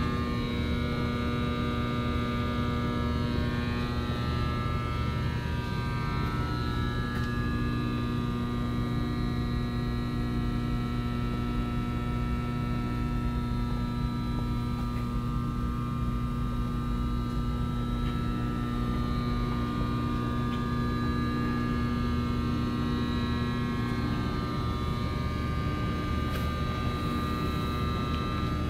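A steady hum with many even overtones under a low rumble, holding constant throughout.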